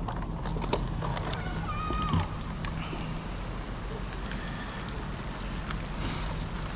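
Wind buffeting an action camera's microphone, a steady rushing rumble, with a few faint clicks and a brief whistling tone about two seconds in.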